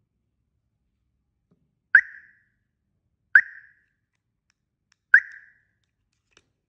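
Tuya Wi-Fi alarm siren giving three short, sharp chirps about a second and a half apart. These are acknowledgement beeps as a 433 MHz remote control is paired with it.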